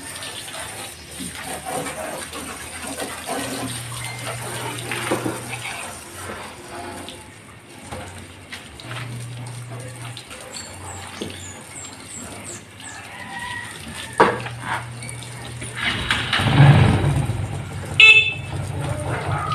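Water spraying from a garden hose nozzle against a pickup truck's body and wheel area, with traffic in the background. Near the end a vehicle goes by loudly and a horn toots briefly.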